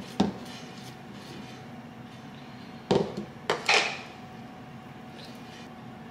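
Kitchen dishes being handled: a couple of sharp knocks near the start, then a cluster of clinks and a short scrape about three seconds in, as a cup and bowls are set down and moved.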